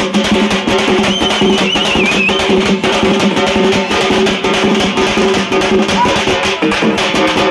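Fast, dense drumming on large double-headed stick drums, beaten with two thin sticks, over crowd voices.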